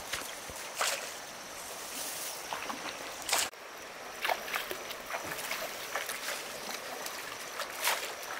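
Water splashing and sloshing in a stream, with irregular sharper splashes over a steady rush of water.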